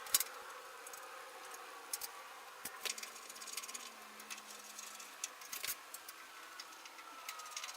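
Scattered light clicks, taps and small metallic rattles of table saw parts being handled and fitted, with a sharper knock at the start and a few more around the middle.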